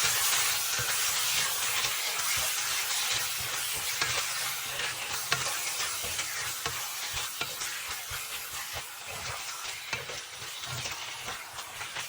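Boneless chicken pieces sizzling in hot oil with ginger garlic paste, stirred with a utensil that knocks and scrapes against the pan now and then. The sizzle fades gradually.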